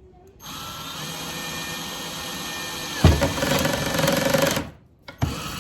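Electric drill running, its bit biting into a handle with a sudden, heavier loaded sound about three seconds in. It stops near the end and starts again.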